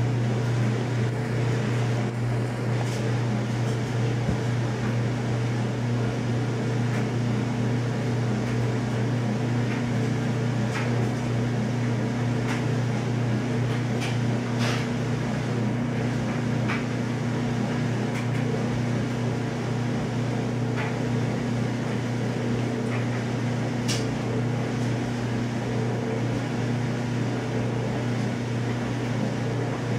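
Steady mechanical hum with a low drone, with a few faint ticks scattered through it.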